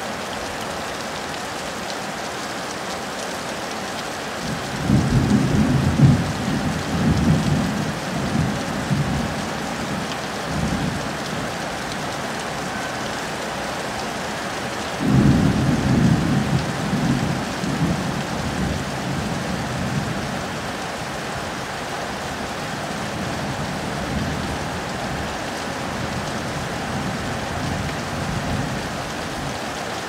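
Heavy rain pouring steadily onto foliage and ground. Thunder rolls twice, about five seconds in and again about fifteen seconds in, each rumble dying away over several seconds.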